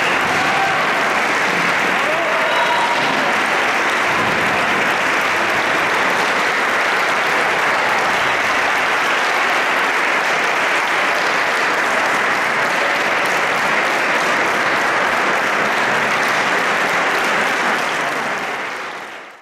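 Audience applauding steadily, the clapping fading out near the end.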